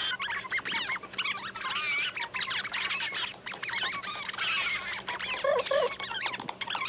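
A rapid, busy string of high-pitched squeaks and chirps, each a quick sweep up or down in pitch.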